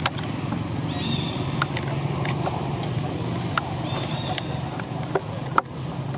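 Steady low engine-like hum with scattered sharp clicks, and a short high chirp repeating about every three seconds.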